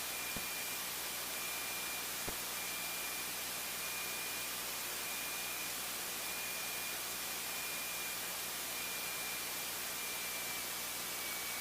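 Steady hiss of the light aircraft's cockpit intercom and radio audio feed, with a faint high whine held steady throughout.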